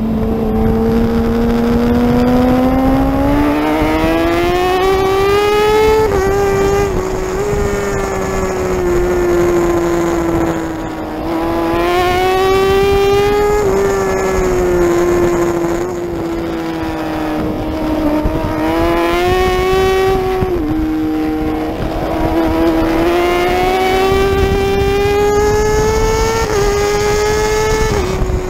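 Racing superbike engine at high revs, pitch climbing in long pulls. Each pull is broken by a quick drop at an upshift, with a few short easings off the throttle before it pulls again. Wind rush runs underneath.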